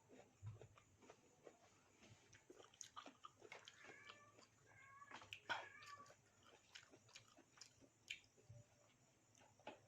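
Faint close-up chewing and crunching of food, with many small wet mouth clicks. Between about three and six seconds in come a few short high-pitched calls.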